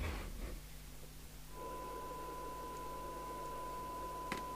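A steady 1 kHz test tone over faint receiver hiss, starting about a second and a half in. It is the test set's modulated signal as received and demodulated by the CB radio, as used for a SINAD sensitivity measurement. A faint rustle at the start and a short click near the end.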